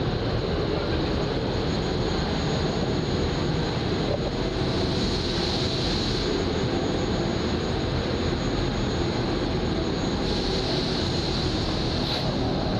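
Steady, unbroken drone of heavy machinery or engines, a dense rumbling noise with no clear rhythm.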